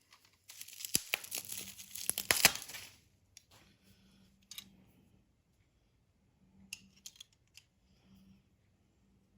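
Packaging crinkling and tearing as the Cleco kit is unwrapped, with sharp clicks mixed in, for about two and a half seconds. After that come only a few faint, scattered clicks of handling.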